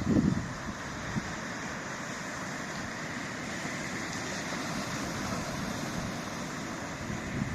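Steady rush of wind over the microphone, with low buffeting thumps from a gust right at the start.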